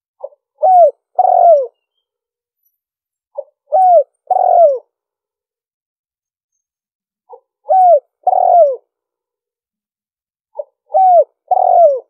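Spotted dove cooing: four phrases about three and a half seconds apart. Each is a soft short note followed by two louder coos, the last one falling in pitch.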